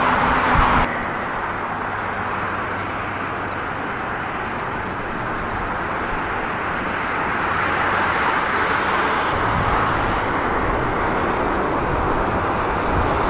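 Boeing 747-400 freighter's four jet engines at takeoff power during the takeoff roll: a steady, loud rush of jet noise. It drops abruptly about a second in, then builds again in the second half.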